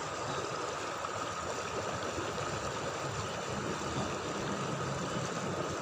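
River water running steadily.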